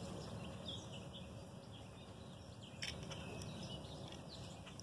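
Faint outdoor background with a few scattered short bird chirps, and a single light click about three seconds in.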